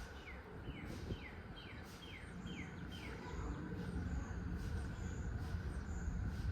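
A songbird singing a series of about eight quick, down-slurred notes over roughly three seconds, followed by a few faint high whistles. A steady low rumble runs underneath.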